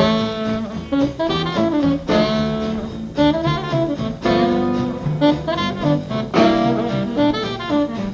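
Instrumental jazz music playing with held melodic notes.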